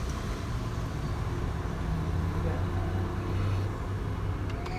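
A motor vehicle's engine running with a steady low hum that swells a little and then eases off near the end.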